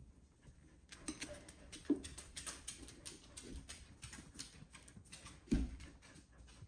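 Dog claws clicking and tapping on a wood floor as the dogs walk about, with a couple of soft thumps.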